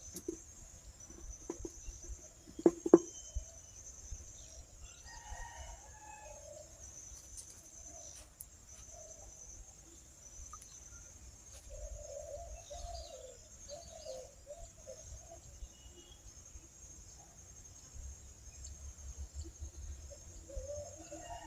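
A rooster crowing and chickens clucking over a steady high chirring of insects. Two sharp knocks come close together about three seconds in.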